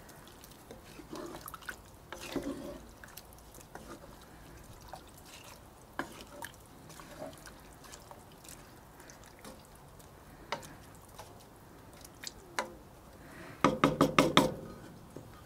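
Wooden spoon stirring a watery stew in a cast-iron Dutch oven: soft wet sloshing with scattered clicks of the spoon against the pot, and a quick run of knocks near the end.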